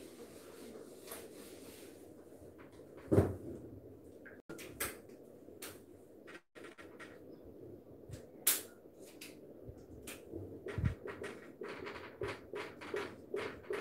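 Marker pen writing on a whiteboard: scattered taps and scratchy strokes, with a quicker run of short strokes near the end. Two sharper knocks stand out, the loudest about three seconds in and another about eight seconds in.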